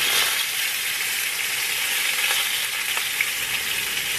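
Steady sizzling of food frying in pans on the stove, bacon-wrapped asparagus in a grill pan and a cream sauce in a skillet, while a spatula stirs the sauce, with a few faint ticks.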